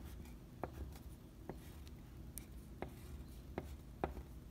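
A black wax crayon writing block letters on paper, with faint scratchy strokes and a light tick each time the crayon meets the page, about six times.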